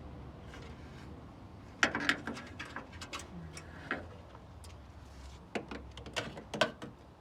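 Hand tools clinking and knocking against metal parts during truck disassembly, in irregular sharp clicks, with the loudest cluster about two seconds in and another near the end.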